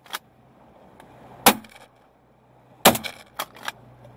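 Two shotgun shots about a second and a half apart, followed by a few lighter clacks from the gun's action.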